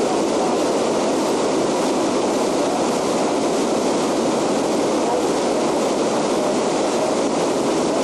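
Whitewater river rapids rushing over rocks close by: a steady, unbroken sound of churning water.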